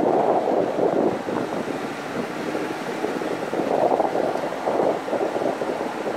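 Wind buffeting the microphone of a camera mounted on a moving car: a loud rushing noise that swells and dips in irregular gusts.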